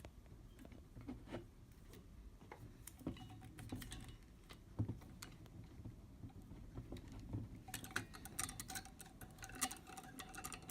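Faint, scattered clicks and light metallic rattling of a wing corkscrew being handled and twisted on a wine bottle, with a quicker run of clicks near the end.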